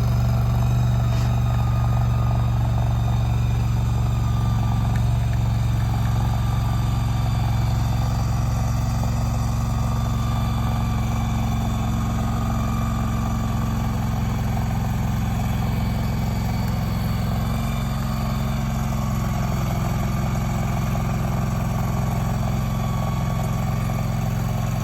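Engine of a remote-controlled shed mover, tracks at the back and wheels at the front, running steadily as it drives a barn across soft, wet ground.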